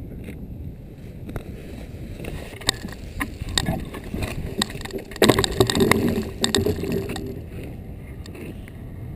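Wind rumbling on the microphone, with a run of knocks, clicks and scraping as a sailor climbs into the iceboat's cockpit right beside the camera, loudest a little past halfway.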